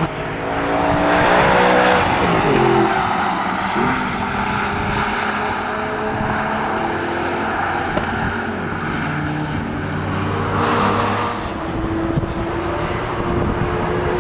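Audi R8's 4.2-litre FSI V8 at speed on a race track, its engine note climbing as it accelerates and dropping in pitch as it passes by, more than once.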